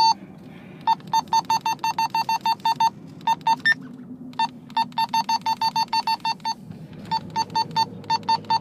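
Runs of short electronic beeps from a handheld radio's keypad as channels are stepped through, about five beeps a second with brief pauses and an occasional higher beep, over a low steady hum.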